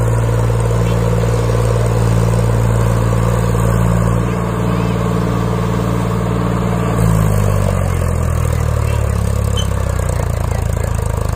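Eicher 5660 tractor's diesel engine running at high revs, working against a fully loaded sugarcane trailer. About seven seconds in the revs fall and the engine settles at a lower steady speed.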